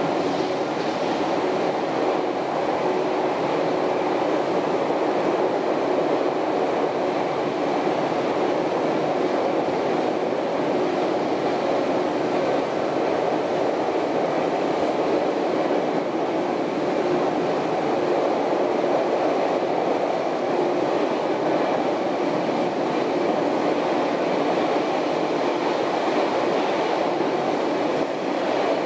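Interior running noise of a 413/455-series electric multiple unit travelling at steady speed: a dense rumble of wheels on rail, with the steady hum of its MT54 traction motors holding one pitch, heard inside the car in a tunnel.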